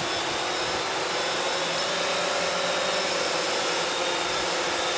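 Cheerson CX-20 quadcopter's four brushless motors and propellers whining steadily as it holds a low hover.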